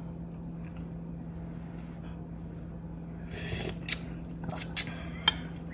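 Broth simmering in a pan over a steady low hum. A little over three seconds in, the spatula scrapes and clicks against the pan several times as the broth is stirred.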